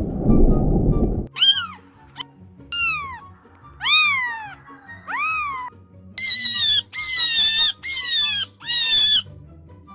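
A loud low rumble for about the first second cuts off suddenly. Then a cat meows repeatedly: four rising-and-falling meows, then four higher, more even meows in quick succession, over soft background music.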